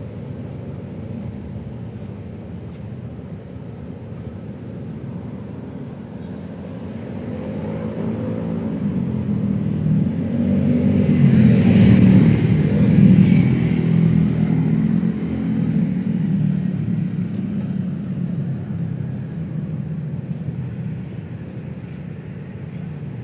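Street traffic with a motor vehicle's engine passing close, swelling to a peak about halfway through and then fading away.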